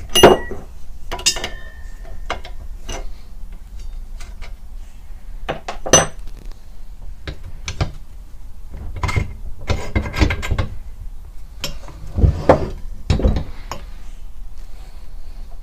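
Metal clinks and knocks of a wrench working on the bracket bolts of an Atlas lathe countershaft, with parts being handled. A sharp ringing clink comes right at the start, and two bunches of duller knocks come near the end.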